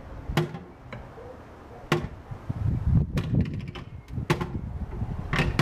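Hand tool worked against a car's front wheel: sharp metallic clicks and knocks, about five spread through, with a quick run of clicks a little past halfway.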